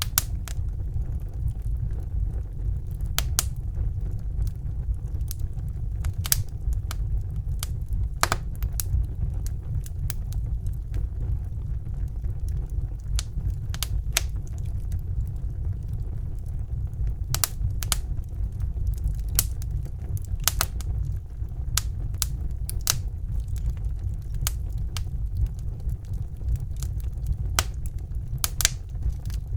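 Wood fire in a fireplace crackling, with sharp, irregular pops and snaps over a steady low rumble of the flames.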